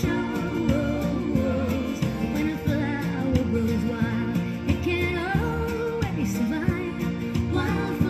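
Recorded song playing, a singing voice over instruments.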